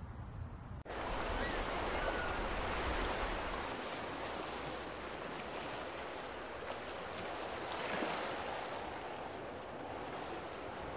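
Ocean waves and surf: a steady rushing wash that starts abruptly about a second in and swells around two to three seconds in and again near eight seconds. Before it, a low rumble cuts off suddenly.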